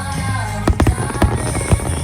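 Music playing while aerial fireworks shells burst, a quick run of sharp bangs starting a little way in.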